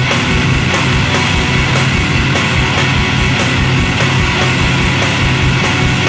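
Math rock band recording: a loud, dense passage of electric guitar and drums, played at steady full volume.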